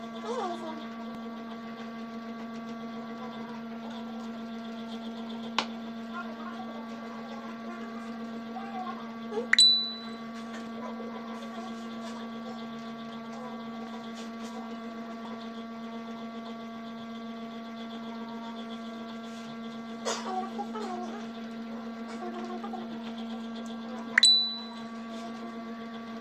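Steady electrical hum with faint eating sounds from a man chewing roast pig. It is broken by four sharp clicks; the two loudest, about ten seconds in and near the end, ring briefly.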